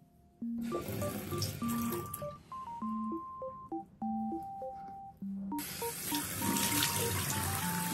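Light keyboard background music, with water running and splashing at a bathroom sink in two stretches: about a second in for a second and a half, and again from about halfway to the end as a face is rinsed with water.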